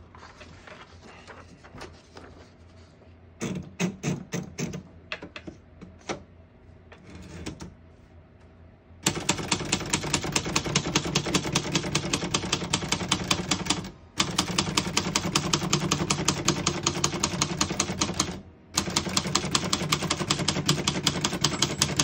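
Royal Arrow portable manual typewriter: a few scattered clicks and rattles as a sheet of paper is loaded, then from about nine seconds in, fast, steady typing on the keys with two brief pauses.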